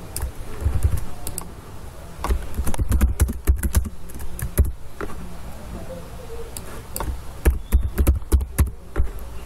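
Computer keyboard keys clicking in several short runs of typing, each keystroke with a dull low thump.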